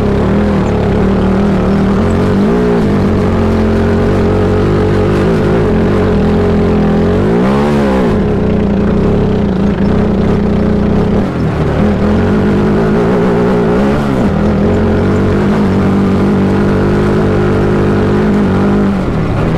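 Sierra Echo electric race car driven hard on sand: its 400-volt electric motor and gear reduction whine steadily under power, the pitch rising and falling with the throttle a few times, over the noise of the run.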